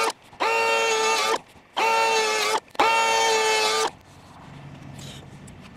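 DeWalt DCP580 cordless power planer triggered in three short bursts of about a second each. Each time its motor whines quickly up to speed and then cuts off sharply, as it takes light passes over the end of a 2x8 ridge beam to flatten it.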